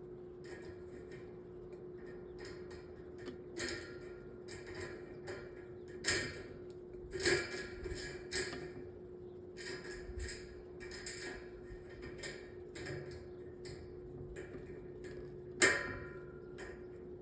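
A 12-inch metal table fan's motor running with a steady hum, with irregular sharp ticks and clicks over it, a few of them louder.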